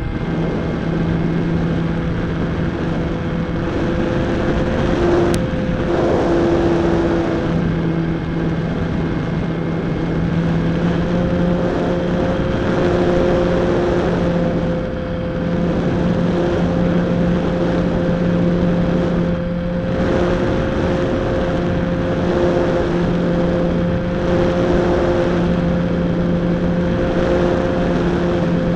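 Electric motor and propeller of a Slow Stick RC plane running at a steady hum in flight, heard from a camera on the airframe, with a rush of air over the microphone. The hum dips briefly a couple of times.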